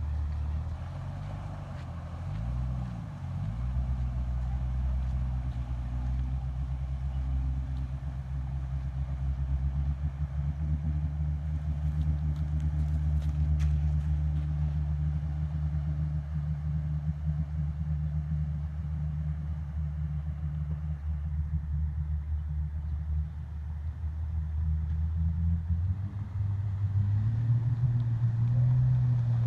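A 4x4's engine running steadily at low revs, dipping briefly a couple of seconds in, then revving up near the end.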